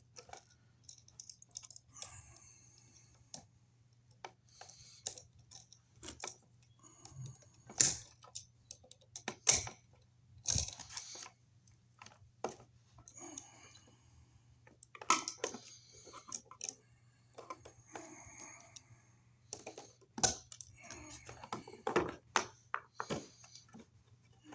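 Irregular clicks, taps and short scrapes of electrical wires being folded and worked into an outlet box by hand, with a faint steady low hum underneath.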